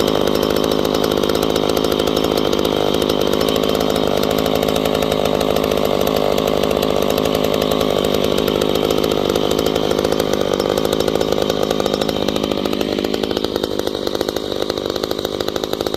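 Two-stroke chainsaw engine running steadily and loudly, its upper tone easing slightly near the end.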